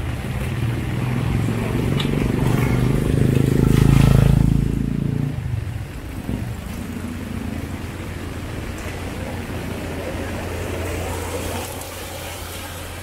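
A small motorcycle engine running close by. It grows to its loudest about four seconds in, then fades away as it passes. Steady rain noise continues beneath it.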